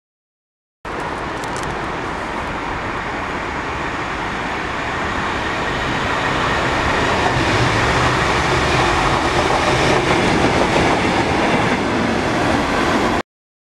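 A pair of Class 97/3 diesel locomotives (rebuilt Class 37s with English Electric V12 engines) running coupled as light engines, their engines and wheels on the rails getting louder as they approach and pass close by. The sound starts abruptly about a second in and cuts off abruptly near the end.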